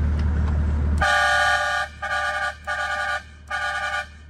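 Truck horn kit sounding a chord of several steady notes in blasts: one longer blast starting about a second in, then three shorter ones. Under it runs a low engine hum.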